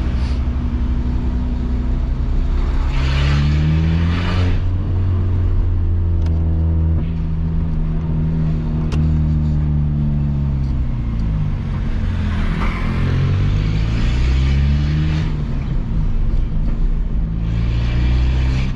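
Peugeot 206's 1.4-litre four-cylinder engine through a straight-pipe exhaust with no muffler, pulling through traffic. Its pitch rises and falls several times as it accelerates and eases off.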